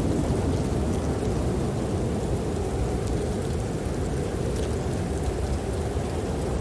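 Steady, low rumbling snowstorm wind with faint, scattered crackles from a wood fire in a fireplace.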